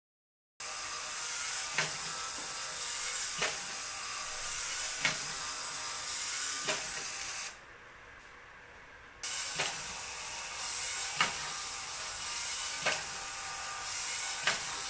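LEGO SPIKE motor whirring steadily as it drives a two-legged LEGO walker robot, with the feet knocking down on the surface about every one and a half seconds. The sound starts about half a second in and drops away for a moment in the middle.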